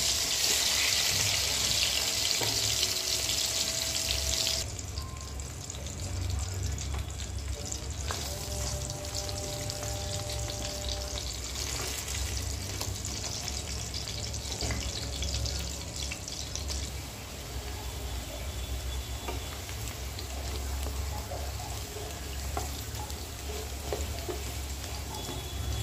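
Potato chunks sizzling as they fry in hot oil in a kadai, with a wooden spatula now and then knocking and scraping as it turns them. The sizzle is loudest for the first few seconds, then drops abruptly to a softer steady sizzle over a low hum.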